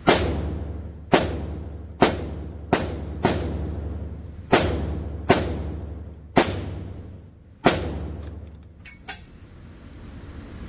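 A quick series of about nine gunshots at uneven gaps of roughly half a second to a second, each a sharp crack with a long echoing decay, followed by one fainter pop about nine seconds in.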